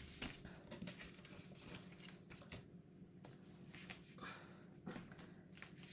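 Near silence with faint rustling and a few light clicks as banknotes and cash-envelope binders are handled.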